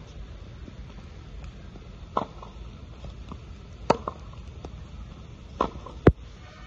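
A tennis rally on a wet hard court: sharp pops of the racket striking the ball and the ball slapping the waterlogged surface, about four separate hits a second or two apart, the loudest near the end.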